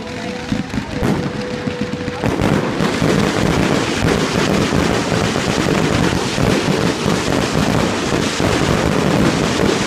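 Fireworks going off in a dense, rapid barrage of bangs and crackles, building up about two seconds in and keeping on without a break.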